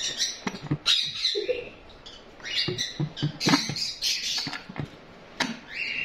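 A brass sliding-bolt latch clicking and knocking as it is worked open on a plywood nest box, with the wooden box door then opened. Short bird chirps and squawks come in among the clicks.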